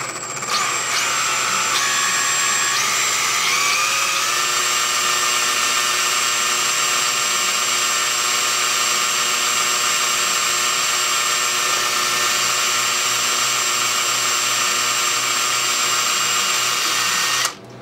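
Handheld electric drill running a tiny 1/16 inch bit into a small metal pin. The motor whine stutters and climbs in pitch over the first few seconds, holds steady, then stops sharply near the end.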